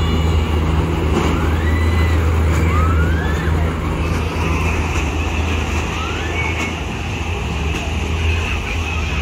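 Funfair ghost-train ride running: a loud steady low hum, with short high-pitched wails that rise and fall, recurring every second or so and thinning out in the second half.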